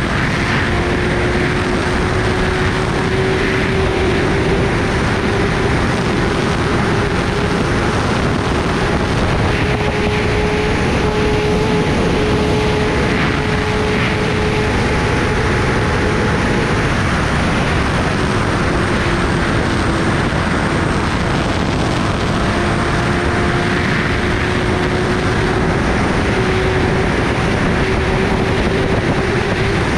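Kawasaki Ninja ZX-10R's inline-four engine running at a steady cruise under heavy wind rush on the microphone. The engine note dips a little past halfway and climbs back.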